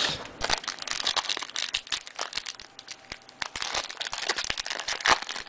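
Foil wrapper of a Fleer Ultra basketball card pack crinkling and tearing as the pack is opened: a dense, irregular crackle, with a sharper crinkle near the end.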